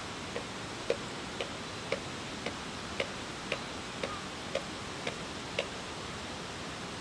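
Evenly spaced light ticks, about two a second, over a steady hiss; the ticks stop a little over a second before the end.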